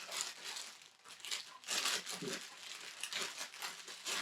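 Plastic crinkling and rustling in irregular short bursts.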